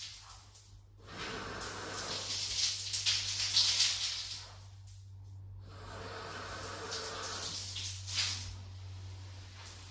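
Two long bursts of hissing noise, over a steady low hum.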